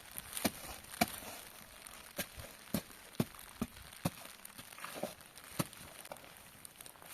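Irregular sharp clicks and crackles, about ten of them spread unevenly, with some crinkling, as of things being handled.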